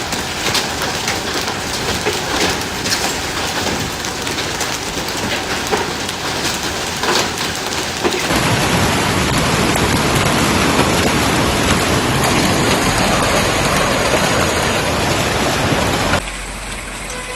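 Hailstorm pelting hard surfaces in a dense, steady clatter, with sharp individual impacts standing out for the first eight seconds. It turns abruptly louder and denser about eight seconds in, then drops to a quieter downpour about sixteen seconds in.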